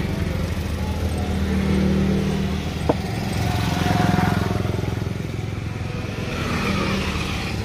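Motorcycle and traffic engines running on the street, a steady low hum that swells twice as vehicles pass. A single sharp click comes about three seconds in.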